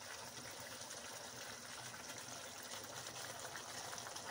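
Faint, steady simmering of tomato sauce around stuffed aubergines in a frying pan.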